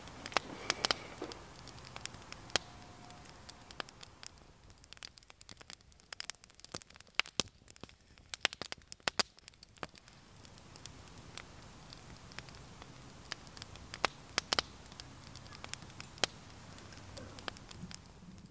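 Wood fire burning in a small FireHiking tent stove, crackling with sharp, irregular snaps and pops.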